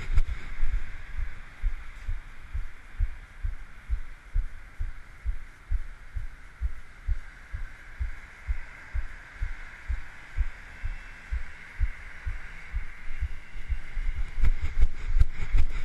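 Footsteps on pavement heard through a body-worn camera: steady low thuds about two to three a second, over a faint steady hiss. Near the end the thuds turn sharper and harder as the running pace picks up again.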